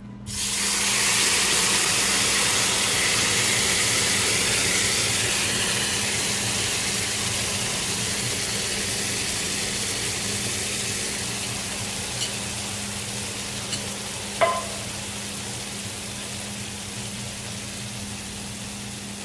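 Shrimp teppanyaki in sauce hitting a preheated cast-iron sizzling plate: a loud sizzle starts suddenly about a quarter second in and slowly dies down. A single sharp click about 14 seconds in.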